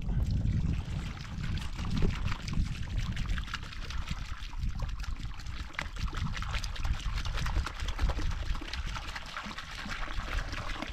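Water pouring and trickling steadily from a plastic jerrycan onto a mound of dry earth and straw, wetting the soil to mix mud.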